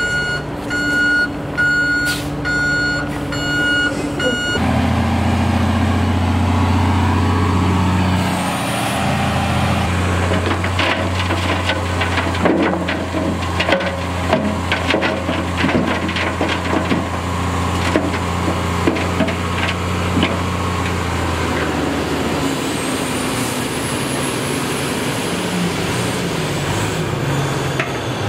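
Dump truck backing up with its reversing alarm beeping about once a second, then the beeping stops and the engine runs up steadily as the bed tips. A load of gravelly fill slides out, with stones clattering down, before the engine drops back near the end.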